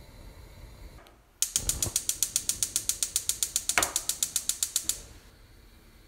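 Gas stove's electric spark igniter clicking fast and evenly, about eight clicks a second, for three and a half seconds, starting about a second and a half in and stopping suddenly.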